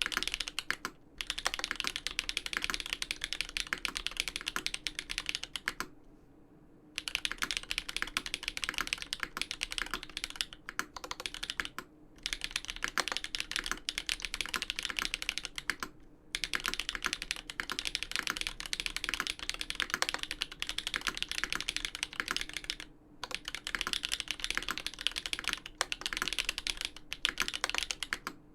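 Fast, continuous typing on a Dolphin v2 custom mechanical keyboard with lubed Everglide Dark Jade linear switches on 63.5 g slow springs, an aluminium plate and GMK keycaps: a dense run of keystroke clacks. It breaks off for brief pauses several times, the longest about six seconds in, lasting about a second.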